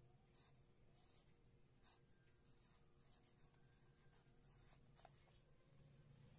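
Faint scratching of a felt-tip marker writing on paper, in a series of short strokes.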